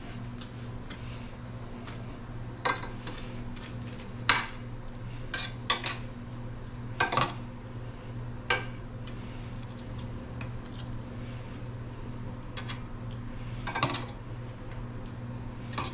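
Metal tongs clinking and scraping against a metal skillet as shrimp and bread are moved around in it, about seven sharp clinks at irregular intervals. Underneath runs the steady low hum of the kitchen exhaust fan.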